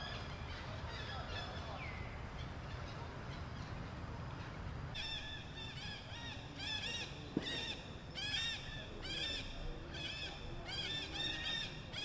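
A run of short, pitched animal calls starting about five seconds in, coming in quick clusters of several a second, over a steady low background rumble. One sharp knock sounds in the middle of the calling.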